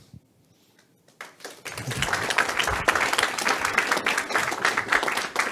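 Audience applauding: many people clapping, starting about a second in after a brief lull and keeping up steadily.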